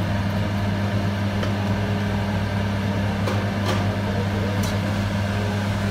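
Steady low mechanical hum of a running kitchen appliance motor, with a few faint ticks.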